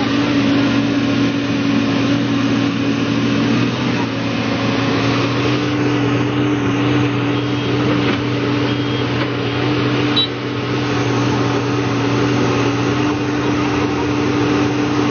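Engine of heavy construction machinery running steadily at a constant pitch, with a slight shift in pitch about four seconds in.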